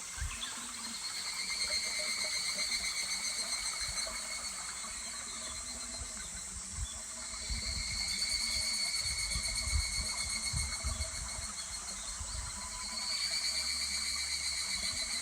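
Higurashi (evening cicadas) calling in three swelling, rapidly pulsing phrases over the steady murmur of a small stream, with a few low rumbles.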